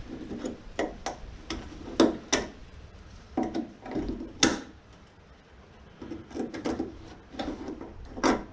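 Irregular metal clicks and knocks from hands and a tool working at the retaining clip on the end of a hood gas-lift strut to free it.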